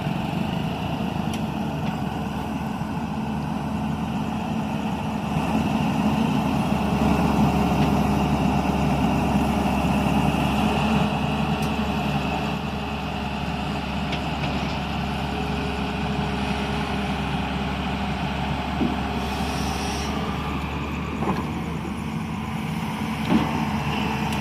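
Hydraulic excavator's diesel engine running steadily, growing louder for several seconds in the middle.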